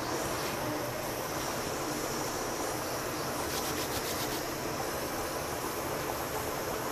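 Steady hiss from the gas stove under a kadai of simmering curry gravy, with faint crackly rustles about three and a half seconds in as crushed dried fenugreek leaves (kasuri methi) are crumbled over it.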